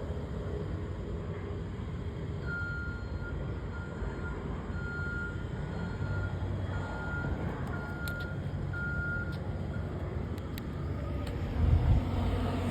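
Reversing alarm on a road-construction vehicle beeping at about one beep a second for some seven seconds, over the steady low running of a heavy engine. A louder low rumble comes near the end.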